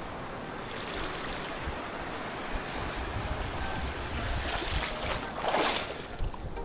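Waves washing on the shore, one breaking louder about five and a half seconds in, with wind rumbling on the microphone.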